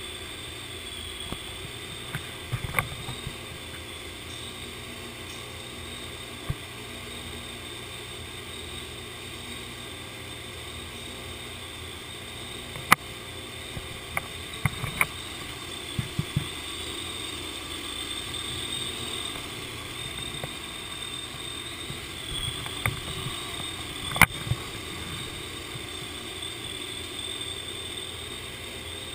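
Steady mechanical hum with a thin high whine, broken by a handful of sharp clicks and knocks, the loudest about 13 and 24 seconds in. No revving or dyno pull.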